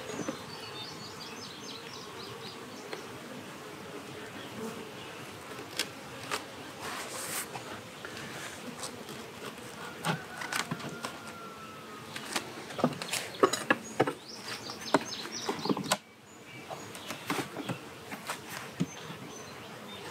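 Honeybees buzzing around an open hive. Wooden knocks and clicks come as a deep brood box is set on top and its frames are handled, thickest in the second half.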